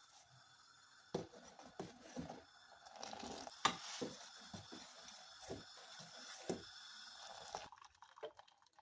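Irregular knocks, clicks and scrapes of kitchen utensils being handled, over a steady background hiss that stops near the end.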